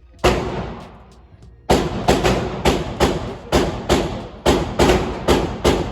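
Gunshots echoing in an indoor shooting range: a single shot, then after a pause of about a second and a half a rapid string of about fourteen shots, three to four a second.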